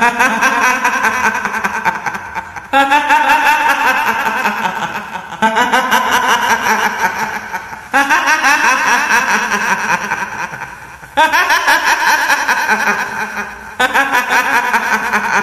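A woman's giggling ghost laugh, the cackle of a kuntilanak, repeated six times. Each burst starts abruptly and fades away over about two and a half seconds.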